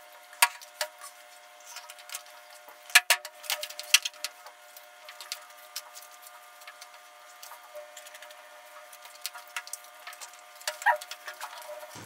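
Eating sounds: forks clicking and scraping against aluminium foil trays of macaroni béchamel, with chewing and the handling of roast chicken, as scattered sharp taps. The loudest taps come about three and four seconds in, over a faint steady hum.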